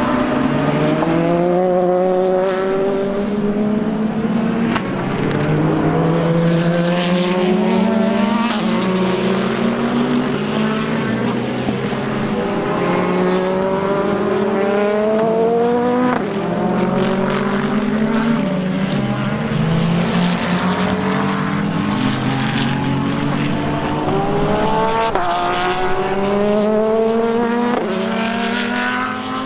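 IMSA prototype and GT race cars accelerating one after another, their engines climbing in pitch and dropping sharply at each upshift, with several cars overlapping.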